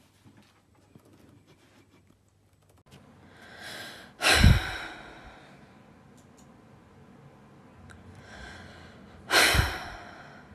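A person sighing loudly and theatrically twice, close to a phone's microphone: each sigh is a deep breath in followed by a heavy, sudden breath out. The first comes about four seconds in and the second near the end.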